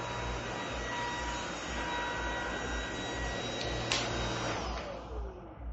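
Cordless stick vacuum's brushless motor running with a steady high whine. About four seconds in a click switches it off, and the motor winds down with a falling whine.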